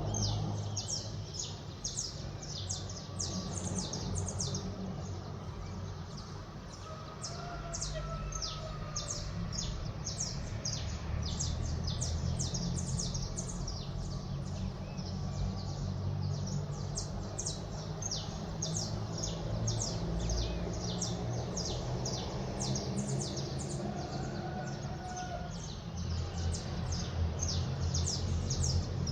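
Dawn chorus of many small birds, a dense stream of short, high chirps with no pause, over a steady low rumble of city background noise.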